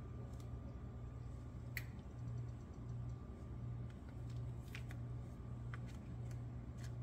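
A low steady hum that comes on right at the start and swells and fades slightly under twice a second. Over it come a few light clicks and rustles of hands placing cheese on an egg roll wrapper lying on its plastic packaging.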